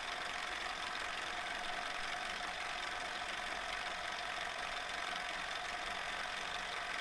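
Drilling machine running steadily at speed with a wiggler edge finder in the chuck, a constant motor hum with a faint steady whine, while the spindle is centred over the mark before drilling.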